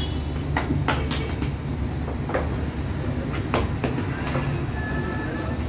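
Feteer dough being stretched, tossed and slapped down on a steel counter by hand: a handful of sharp, irregular slaps over a steady low rumble.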